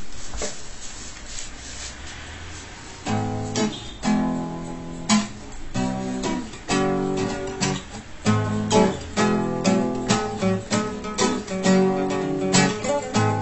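Acoustic guitar playing an instrumental melody. A few faint notes come first, then from about three seconds in a steady run of plucked notes.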